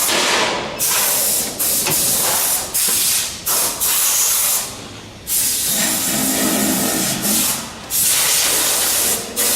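CNC plasma cutting torch hissing loudly as it cuts titanium steel. The hiss switches off and back on abruptly several times in short bursts, with longer breaks about five seconds in and about seven seconds in.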